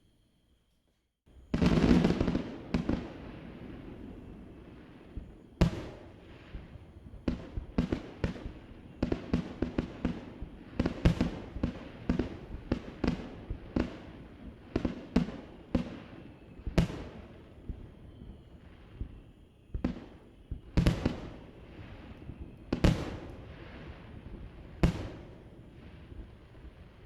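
Aerial fireworks bursting, heard from across a harbour. About a second of quiet is followed by a loud opening burst, then a rapid string of dozens of sharp bangs, each trailing off in a rolling echo.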